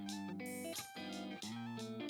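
Background music: strummed guitar chords with a steady rhythm.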